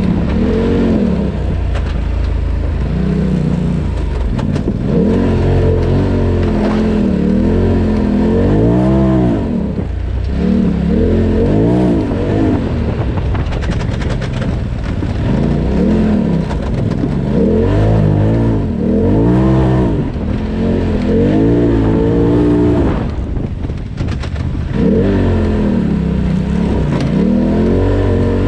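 Polaris RZR Turbo side-by-side's turbocharged engine being driven hard, revving up and easing off again and again, its pitch climbing and falling every couple of seconds. It drops off briefly about 24 seconds in before revving up once more.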